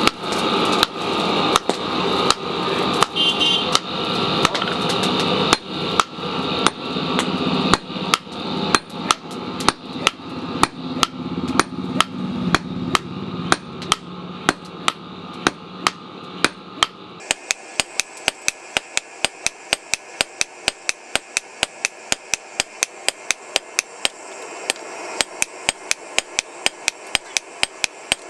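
Hand hammer forging a red-hot steel hoe blade on a steel anvil block: a steady run of sharp metal-on-metal blows, about two to three a second. A steady hum lies under the first part and stops about two-thirds of the way through, leaving the blows alone.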